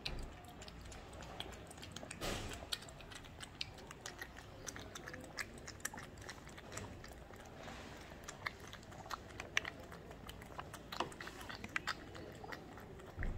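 Two cats eating from small bowls, close to the microphone: a steady run of small, irregular wet clicks from chewing and lapping, with a few louder ones.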